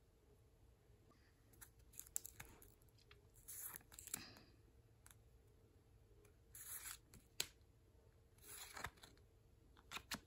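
Faint handling of Pokémon trading cards: a few soft swishes as the cards slide against one another and against the hands, with scattered light clicks and taps.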